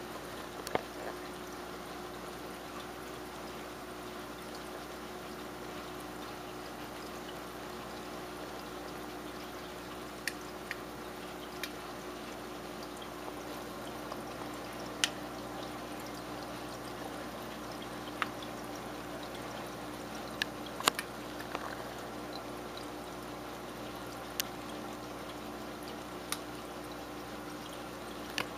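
Steady trickle of aquarium water over a low hum, with sharp single clicks every few seconds, about ten in all: bala sharks clicking as they eat.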